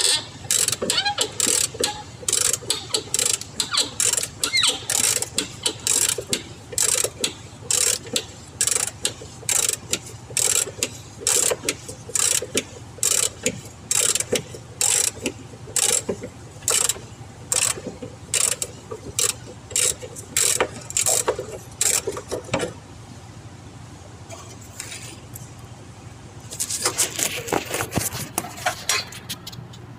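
Hand ratchet wrench worked back and forth on a bolt, its pawl clicking in short bursts about one and a half times a second. The clicking stops about three quarters of the way through, and a few seconds of rubbing noise follow near the end.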